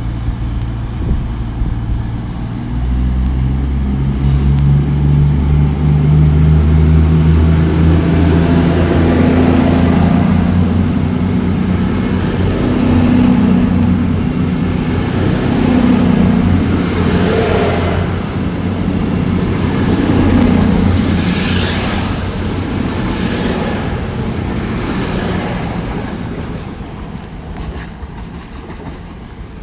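A pair of CrossCountry Class 220 Voyager diesel multiple units going by, their underfloor diesel engines droning. The drone grows about three seconds in, a high whine rises through the middle, wheels clatter over the rail joints about two-thirds of the way through, and the train sound fades near the end.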